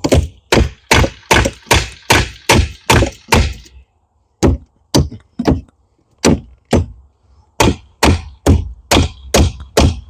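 Heavy blows struck over and over, about two or three a second, with a short pause about four seconds in, like a hammer or chopping tool hitting wood.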